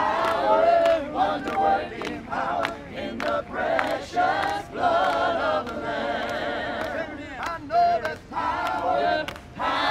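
A congregation singing together without instruments, with handclaps through the singing.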